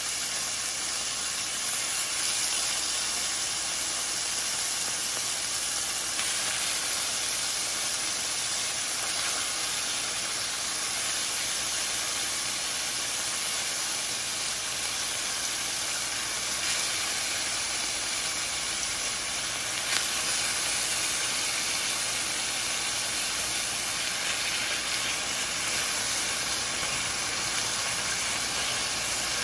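Marinated pork slices sizzling steadily in hot oil in a frying pan, with an occasional faint click.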